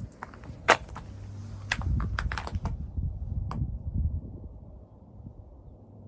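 A series of sharp clicks and knocks, most in the first three and a half seconds, over a low steady hum.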